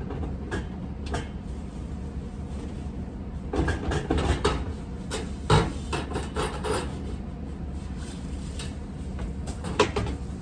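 Irregular knocks, scrapes and clatter of hard objects being handled and shifted about, in a cluster about four seconds in, loudest about five and a half seconds in, with a single knock near the end. A low steady hum runs underneath.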